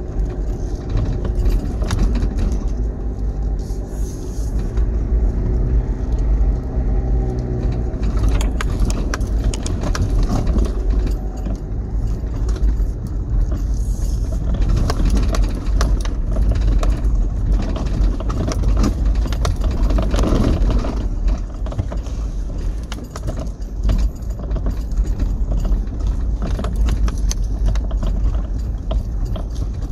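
2005 Toyota Prado 4WD driving over a rough dirt track, heard from inside the cabin: a steady engine hum and heavy low rumble, with frequent knocks and rattles as it bounces over the ruts, busiest from about eight seconds in.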